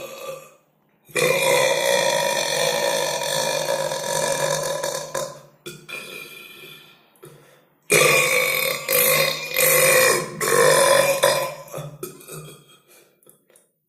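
Two long, drawn-out human belches, each lasting about four seconds at a steady pitch. The first starts about a second in and the second about eight seconds in.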